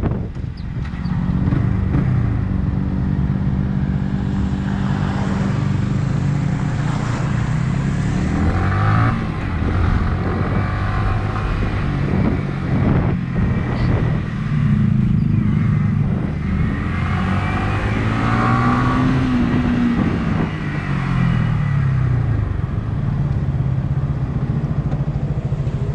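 Yamaha YZF-R15 single-cylinder engine heard while riding: its pitch rises as it accelerates through the gears and falls back again several times, over a rush of wind noise on the microphone.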